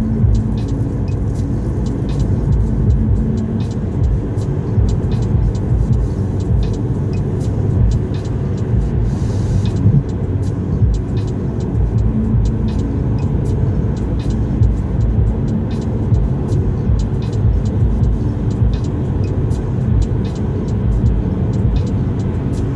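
Car cruising at motorway speed, heard from inside the cabin: a steady low rumble of tyres and engine with frequent light clicks.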